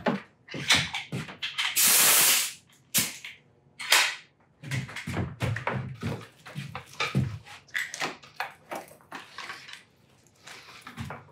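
Crinkling, rustling and knocking of mylar-covered cardboard panels being handled and folded on a workbench, with a louder rushing scrape about two seconds in.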